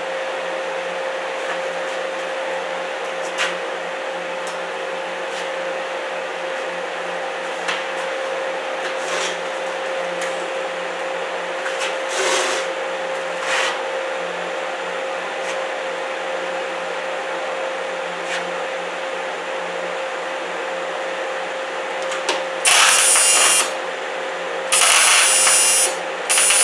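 Steady hum with a few faint clicks, then near the end three short bursts of crackling welding arc, each about a second long, as a broken mower-deck pulley is tack-welded.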